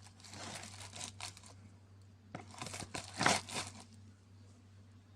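A packet crinkling and rustling as it is handled, in two bursts, over a faint steady low hum.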